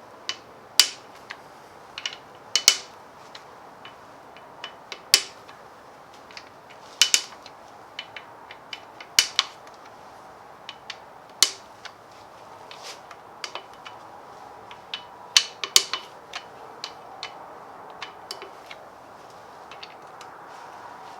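Irregular sharp metallic clicks and clinks, a few ringing briefly, from hand tools and rocker-arm parts being handled while the rocker assemblies are taken off a Gen 4 Hemi V8.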